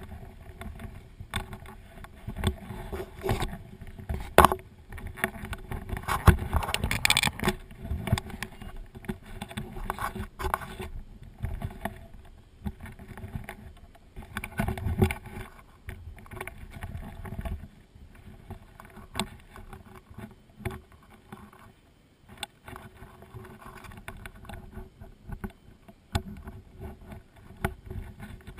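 Close-up handling noise from a firefighter working with a fire hose and gear: irregular knocks, thumps and rustling, busiest in the first half, over a faint steady hum.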